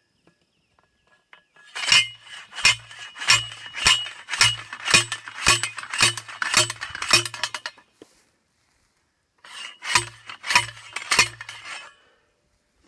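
Hand post driver slamming down on a steel waratah fence post, driving it into the ground: a run of about ten ringing metallic clanks, nearly two a second, then a short pause and three or four more.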